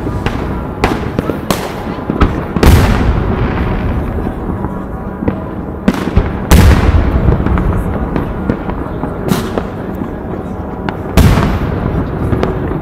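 New Year's fireworks going off in a dense barrage: many sharp bangs and crackles over a constant echoing rumble. Three much louder bursts come about 3, 6.5 and 11 seconds in.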